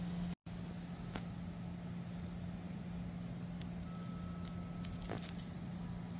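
Steady low mechanical hum, like a motor or engine running, under outdoor background noise. It drops out for an instant near the start, and a faint short high tone sounds about four seconds in.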